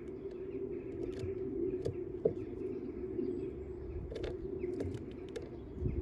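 Faint small birds chirping over a steady low background hum, with a few sharp taps as a female Eurasian blackbird pecks at nuts and seed on a wooden bird table.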